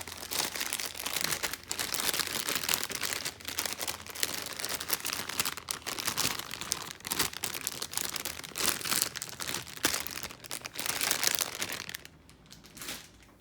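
Continuous crinkling and rustling as squishy toys are handled, stopping about twelve seconds in.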